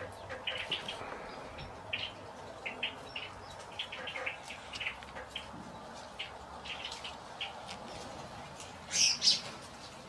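Red-winged blackbirds at a feeder, giving many short chip calls, with a louder, higher call about nine seconds in.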